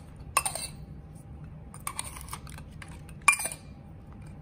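Stainless steel shot glasses clinking against each other as they are handled and nested, with paper wrapping rustling. Three sharp clinks, the loudest about three seconds in.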